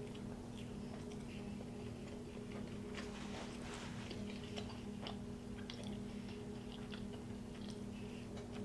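A person chewing a soft pastry bite close to the microphone: scattered small wet mouth clicks and smacks, busiest in the middle, over a steady low hum.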